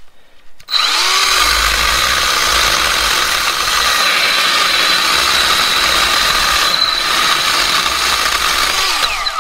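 Milwaukee M12 Fuel Hatchet 6-inch cordless pruning saw, a small brushless battery chainsaw, starting up sharply about a second in and cutting through a wood log with a loud, steady, high whine, then winding down and stopping near the end.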